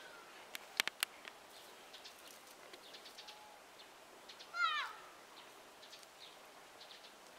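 Faint bird chirps throughout, with a few sharp clicks about a second in. Near the middle comes one short, falling animal call, the loudest sound.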